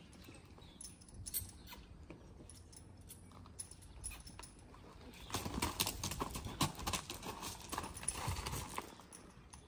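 A grey horse's hooves clopping and crunching on gravel as it walks off under a rider. The hoofbeats become loud and dense from about five seconds in; before that only a few faint knocks are heard.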